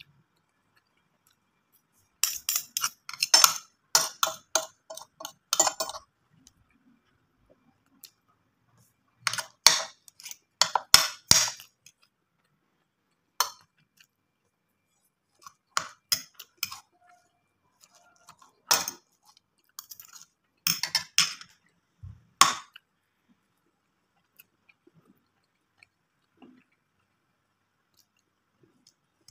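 Eating with a metal fork and spoon: clusters of short, sharp clinks and scrapes of cutlery against each other and the plate, with quiet gaps between.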